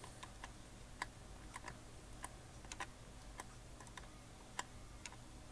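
Faint, irregular metallic clicks, a dozen or so spread out singly and in pairs, as a hand wrench tightens a nut onto a 12 mm threaded rod until the nut sinks into the timber post.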